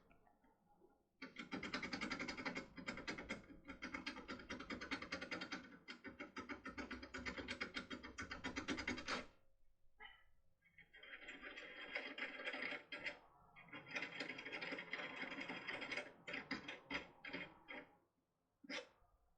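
Impression lockpick with a foil being worked back and forth inside a lock cylinder: rapid metallic rattling and clicking in two long stretches, with a short pause between and a few loose clicks near the end.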